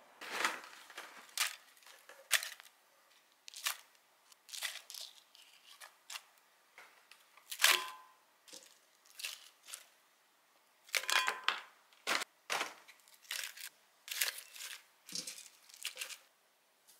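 Napa cabbage leaves and thin-sliced beef brisket being handled and layered into a cast-iron pot, giving a dozen or so irregular, short, crisp crackles and rustles.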